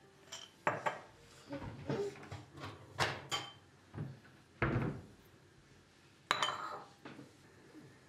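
A glass jar being handled and set down on a stone countertop beside a ceramic bowl: a series of separate knocks and clinks, the loudest about four and a half and six seconds in.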